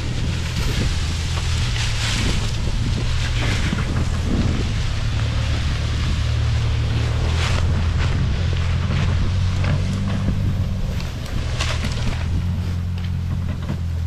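Pickup truck engine running steadily at low speed as it drags a log on a chain across the forest floor, with rustling and scraping of dry leaves, dirt and brush that swells now and then.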